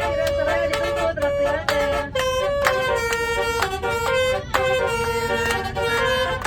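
Basuri 'telolet' multi-tone musical air horn playing a tune: a run of held notes that step up and down in pitch, with no gaps between them.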